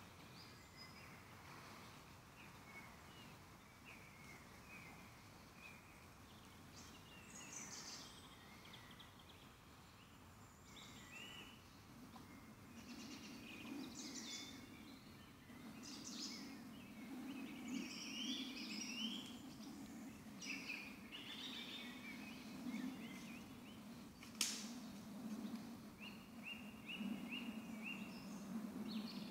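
Faint woodland birdsong: many songbirds giving short chirps and trills. About twelve seconds in, a low continuous sound joins, and one sharp click comes near the end.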